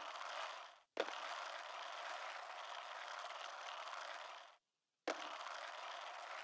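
Faint steady hiss with a sharp click about a second in; it drops out briefly and resumes with another click about five seconds in.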